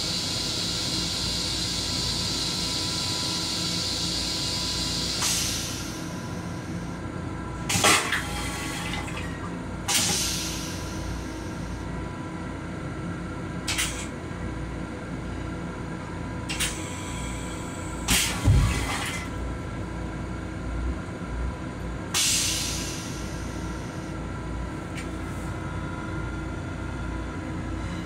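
The flush of an LIRR M7 train-car toilet hisses steadily for about the first five seconds, then stops. After that comes the steady rumble of the moving railcar, with several sharp clunks, some followed by short hisses.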